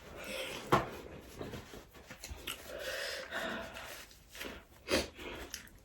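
Close-up eating sounds of a person eating fried rice: chewing and breathing, with a few short sharp clicks or knocks, one about a second in and another near the end.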